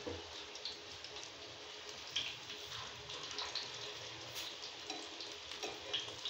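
Potato-and-chicken patties shallow-frying in hot ghee in a pan: a steady sizzle with small crackles and pops.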